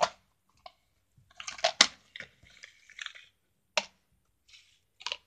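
Objects being handled on a table: scattered clicks and rustling, a spell of clattering about a second and a half in, then single sharp knocks near four and five seconds.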